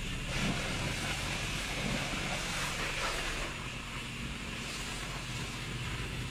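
A steady low mechanical drone with an even pulse, like an idling engine or motor, under a hiss that is strongest in the first three seconds and then eases.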